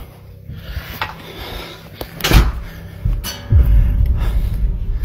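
A few dull knocks and thuds, the loudest about two seconds in, then a steady low rumble from about three and a half seconds on.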